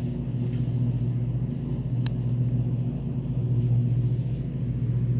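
A steady low mechanical hum, with a single sharp click about two seconds in.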